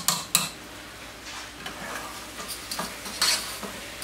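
Metal utensils knocking and scraping in a stainless steel pot of mashed sweet potato as it is mixed: a sharp knock at the start, then softer scattered clicks and scraping, with a louder scrape about three seconds in.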